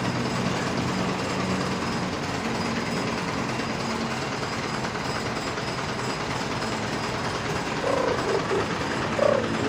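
Diesel truck engine idling with a steady rattling clatter. A few short higher-pitched sliding sounds come in near the end.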